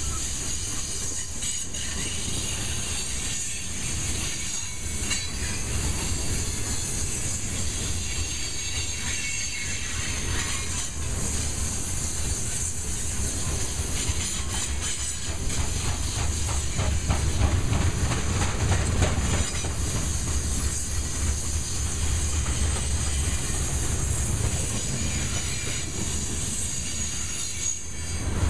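Loaded freight train of covered grain hopper cars rolling past: steady rumble of steel wheels on the rails with a high hiss and light clatter from the wheels, a little louder about two-thirds of the way through.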